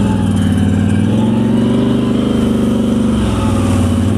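ATV engine running steadily under throttle as the quad drives into shallow water, its note dipping briefly about three seconds in. Water splashes off the tyres near the end.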